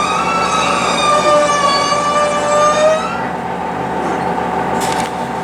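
Train wheels squealing on a curve: a high, wavering squeal over the steady running noise of the railcar. The squeal stops about three seconds in, leaving the running noise and a few clicks near the end.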